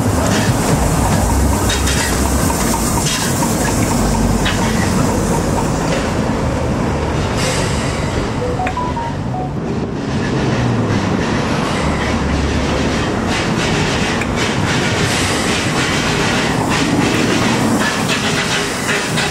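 Steam-hauled train running on the rails: a steady rumble with many short, sharp clicks from the wheels on the track.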